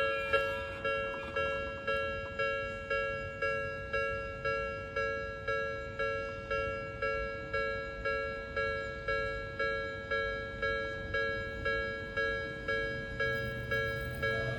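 Japanese railway level-crossing warning bell ringing steadily, about two dings a second, each a two-tone electronic chime that dies away before the next. A low rumble rises under it near the end.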